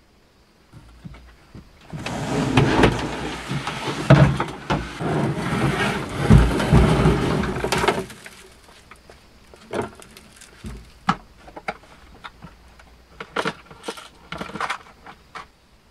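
Kayak hull scraping and knocking as it is dragged out across the floor of a van, for about six seconds. After that come scattered clicks and knocks of fishing gear and a tackle box being handled.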